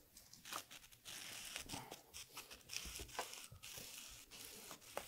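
Faint scraping and clicking of a utensil stirring potato bhaji in a frying pan, over a light hiss.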